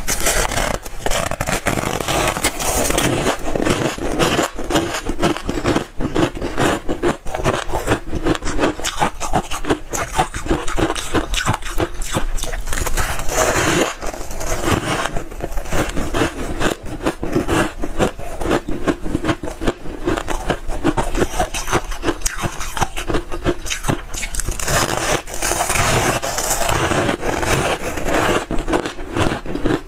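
Close-miked crunching of soft freezer frost being eaten: a dense, continuous run of crisp crackles and scrapes.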